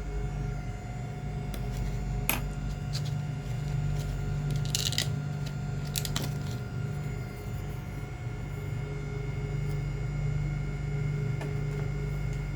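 Several sharp clicks and a short clatter of small hard parts being handled, over a steady low hum.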